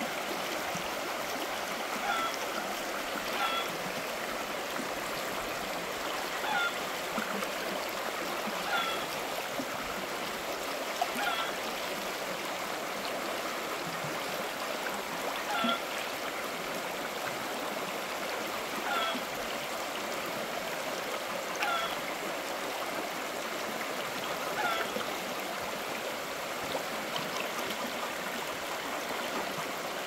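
Shallow rocky stream rushing and babbling steadily over stones. A short pitched call rises above it every two to three seconds.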